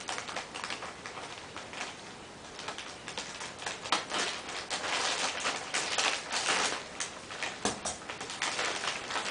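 A white mailer bag being torn and pulled open by hand, with dense crinkling and rustling that grows louder a few seconds in.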